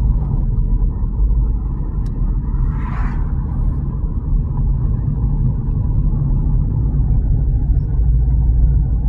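Steady low road and engine rumble inside a moving car, with a brief hiss about three seconds in.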